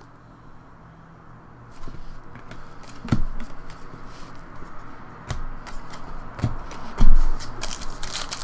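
Hands handling trading cards and packs: rustling and sliding of cards, a few sharp knocks against the table, and the crinkle of a foil pack wrapper building near the end.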